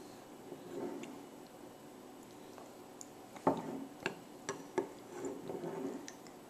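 A few light clicks and taps of a glass bowl being handled on a table, bunched about halfway through, with faint soft sounds of a toddler eating.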